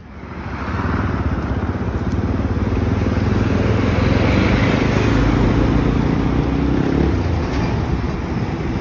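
A TVS Apache RTR 160 4V's single-cylinder engine running as the motorcycle rides by close at hand. The sound builds over the first second, then holds steady.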